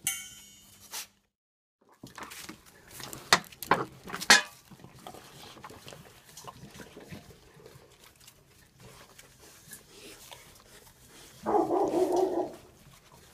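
Puppies eating from a stainless-steel bowl, with a few sharp clinks and knocks of the bowl. Near the end a puppy gives a short bark lasting about a second.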